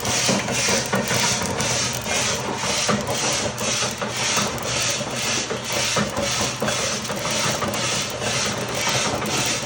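Coffee beans tumbling in a rotating roaster drum, an even rasping swish about two and a half times a second, with scattered sharp pops of the beans cracking as they roast.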